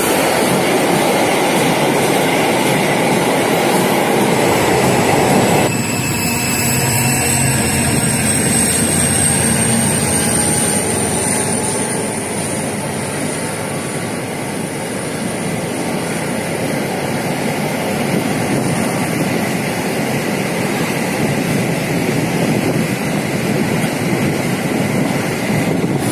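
Freight train of loaded double-deck car-carrier wagons rolling past on the rails, a steady dense rumble and rattle of wheels and wagons. About six seconds in the sound changes abruptly, and a thin high squeal rises slightly and holds for several seconds before fading.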